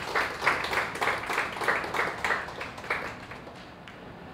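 A small audience applauding, a quick run of separate claps that dies away about three seconds in.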